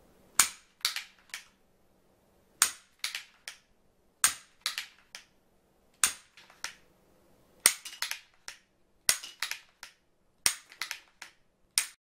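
Handmade wooden lever-action rubber band rifle, a Winchester 1873 replica, having its mechanism worked and fired over and over. Each time there is a sharp wooden clack followed by two or three lighter clacks, eight times at about one-and-a-half-second intervals.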